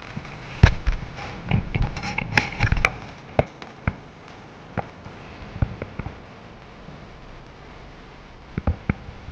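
Irregular sharp knocks and clicks, thickest in the first three seconds, then a few scattered ones and a quick pair near the end.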